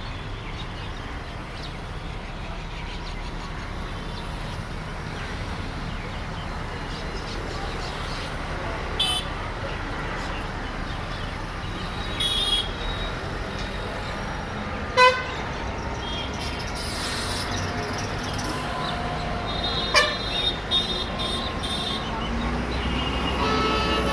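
Steady road traffic noise with a few short, sharp horn toots scattered through, the loudest about halfway.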